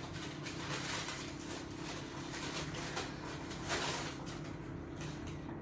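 Cloth shoe dust bag and packaging rustling and crinkling, with many small scattered clicks, as a loafer is pulled out of it.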